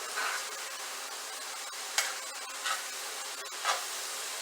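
Chicken pieces sizzling in a frying pan with a steady hiss, stirred so that a utensil scrapes the pan a few times, most sharply about two seconds in.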